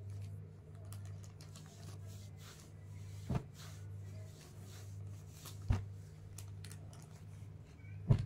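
Suit cloth being handled and turned over by hand: soft rustling with three sharp knocks a couple of seconds apart, over a steady low hum.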